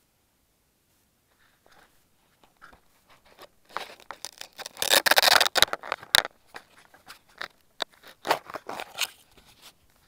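Fingers rubbing and scraping over a small camera's body right at its microphone: irregular crackling handling noise, loudest about five seconds in and again about eight to nine seconds in.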